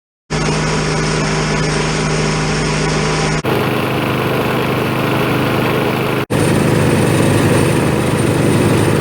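Rolair wheeled air compressor's pull-start gasoline engine running steadily, starting abruptly just after the start, with two sudden cuts where the pitch and tone shift, about three and six seconds in.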